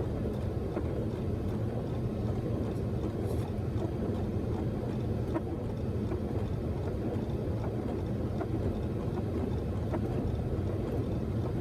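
Steady rushing noise of airflow and engines inside a Boeing 737 cockpit on short final approach, with a few faint clicks.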